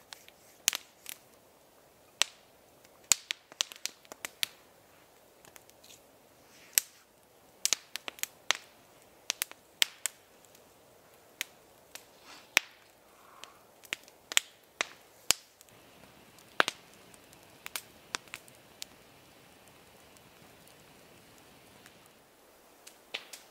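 Wood campfire crackling, with sharp irregular pops and snaps of burning wood, several a second, thinning out near the end.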